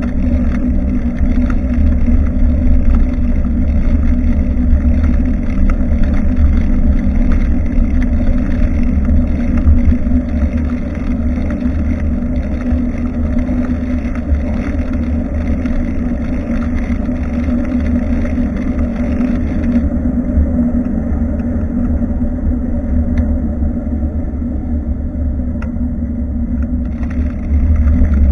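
Steady wind and road rumble on a bicycle-mounted action camera's microphone while riding. It eases off and goes duller about twenty seconds in, then picks up again near the end.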